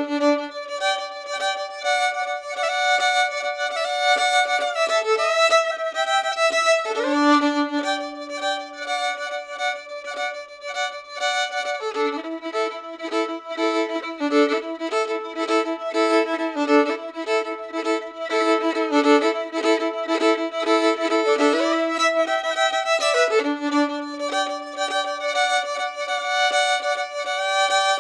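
Solo violin playing a melody of long held notes with a few slides between them, sounding two notes at once through the middle stretch.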